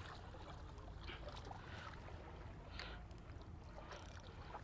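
Faint water lapping with a few soft splashes, over a low, steady wind rumble on the microphone.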